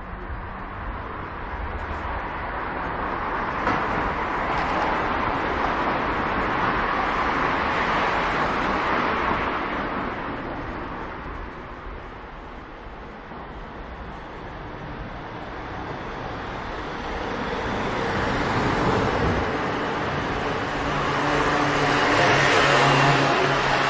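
Street traffic: a car passes, its noise swelling and fading over several seconds, then a second vehicle approaches near the end with a steady engine hum.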